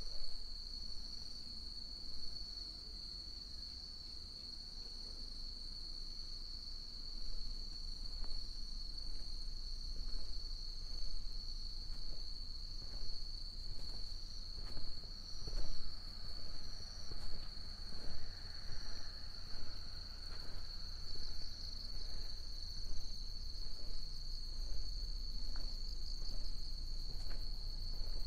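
Crickets giving one continuous high-pitched trill in the evening, over the steady tread of footsteps on a village path.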